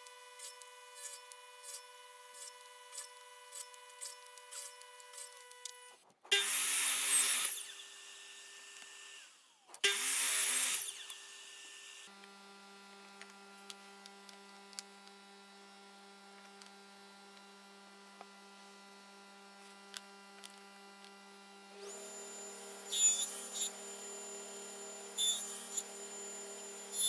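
Two short bursts of a table saw cutting wood, about a second and a half and a second long, a few seconds apart, over steady background music. A few sharp clicks and knocks near the end.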